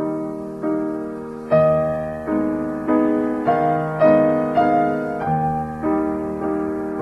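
Background music: a piano playing a slow, gentle melody, a new note or chord struck about every two-thirds of a second and left to die away.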